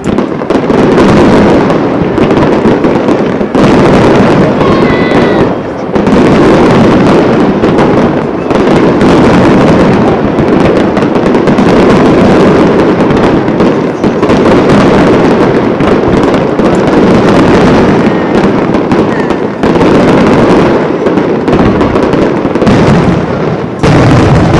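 Aerial fireworks display: a dense, loud barrage of shell bursts and their rumbling echoes overlapping almost without pause, with brief dips in between.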